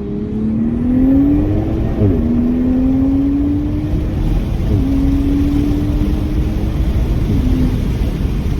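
Toyota Supra with an MST downpipe and intake accelerating through the gears: the engine note rises steadily and drops at automatic upshifts about two, four and a half and seven and a half seconds in, over road and wind noise.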